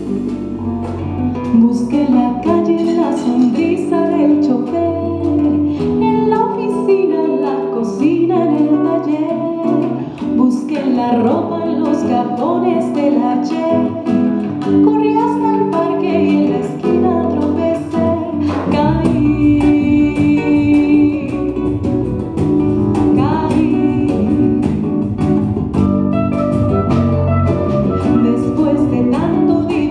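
Live Latin-jazz band music: a woman singing over acoustic guitar and drums, with a deep electric bass line coming in about two-thirds of the way through.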